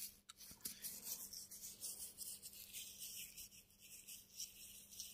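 Near silence: faint room tone with a low steady hum and hiss, and scattered light rubbing and rustling.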